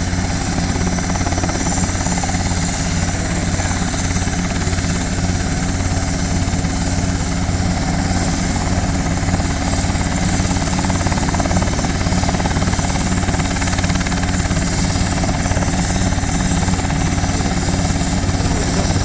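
Helicopter running steadily, its rotor giving a fast, even beat over a steady low engine tone.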